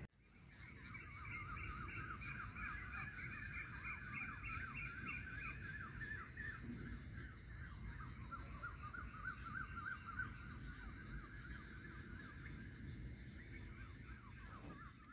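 Night chorus of insects and frogs: a steady high pulsing cricket-like trill over a dense chatter of quick, falling chirps, fading in at the start and fading out at the end.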